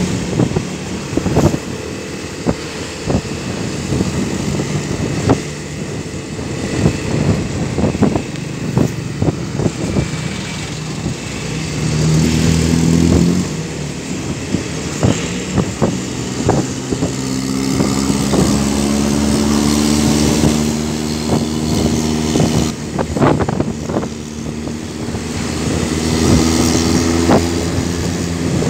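Motorcycle engine running on the move, its pitch climbing as it picks up speed about twelve seconds in and again through the latter half, under rough wind and road noise with frequent short knocks on the microphone.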